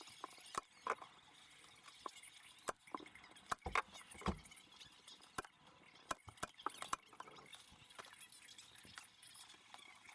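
Upholstery stapling and handling: irregular sharp clicks and knocks from a hand staple gun and from the leatherette and cardboard strips being worked over an MDF box, with a few heavier thumps about four seconds in.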